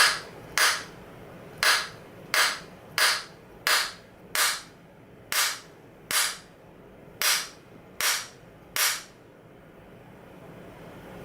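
Inertia (hammer-type) bullet puller being struck repeatedly against a hard surface to pull the bullet from a 7.62x54R steel-case round: twelve sharp knocks about one every 0.7 s, stopping about nine seconds in. This round needs many hits, a sign of tight neck tension from the heavy factory crimp.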